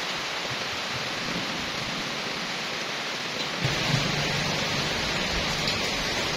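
Steady rain falling on trees, leaves and a wet paved yard: an even hiss. About halfway through, a low rumble sets in beneath it.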